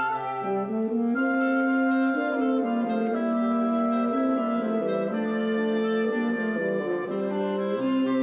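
Instrumental music: several parts hold long notes and move in steps, with no singing.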